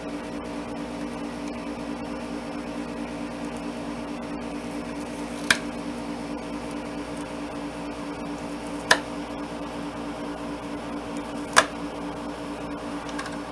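Three sharp clicks of hand wire strippers closing on thin hookup wire, about three and a half and then two and a half seconds apart, over a steady background hum.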